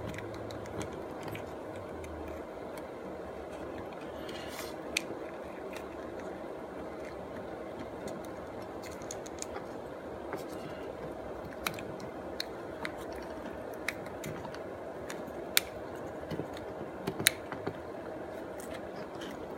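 Scattered small clicks and taps of a plastic ATV push-button start switch being handled and pushed back into its mounting hole, over a steady low hum.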